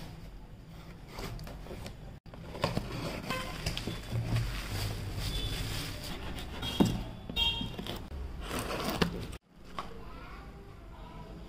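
Parcel packaging being handled: cardboard, a plastic pouch and bubble wrap rustling and crinkling, with small clicks, in three stretches that cut off abruptly twice.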